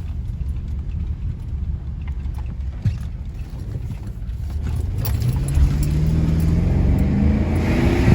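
BMW X5's N63 4.4-litre twin-turbo V8 driving with a steady low rumble, then accelerating about five seconds in, its engine note rising steadily in pitch. It runs without the misfire that the torn PCV valves had caused, now that they have been replaced.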